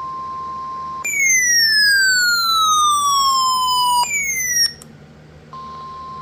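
Emergency alert tones for a tornado warning: a steady, high single-pitch alert tone, broken about a second in by a loud siren-like sweep falling slowly in pitch. A second, shorter falling sweep follows at about four seconds, and the steady tone returns near the end.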